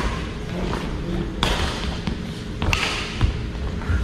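Badminton rackets striking a shuttlecock in a doubles rally: three sharp hits roughly a second and a quarter apart, with players' footfalls thudding on the wooden court floor.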